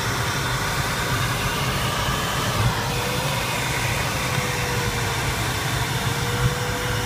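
Steady rushing of airflow over the canopy inside the cockpit of an Arcus M glider in flight. A faint steady tone runs through it, rising slightly about three seconds in and settling back.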